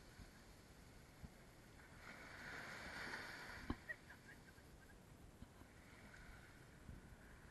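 Faint wash of small waves running up and draining back on a sandy beach, swelling about two seconds in, with a single soft knock just after.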